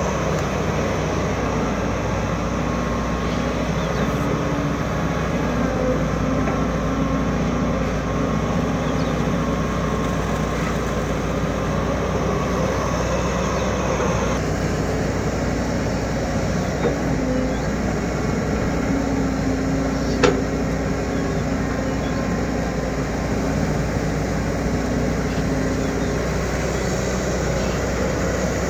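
Machinery engines running steadily: a Caterpillar 312D hydraulic excavator working, with a small engine-driven water pump close by. About halfway through the higher hiss in the noise drops away, and a single sharp knock sounds about two-thirds of the way in.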